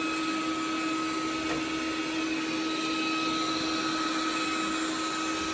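Xiaomi Mijia 3C robot vacuum running steadily: an even suction noise with a constant two-tone hum and whine.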